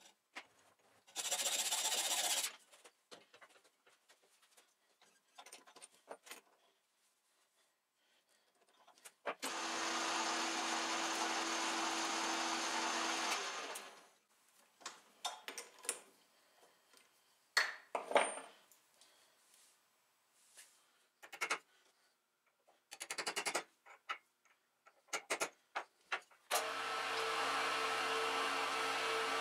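Workshop sounds in sequence: a brief spell of hacksaw cutting on a brass rod held in an Atlas lathe chuck, then the lathe running for about four seconds, scattered clicks and knocks of handling, and near the end a round column mill's motor starting and running steadily.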